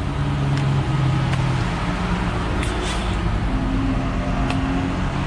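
Steady car engine noise, with tones that shift in pitch as engines change speed, and a few light clicks over it.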